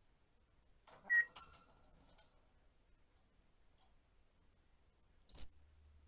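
African grey parrot giving one loud, short rising whistle near the end. About a second in there is a quieter brief chirp with a few clicks.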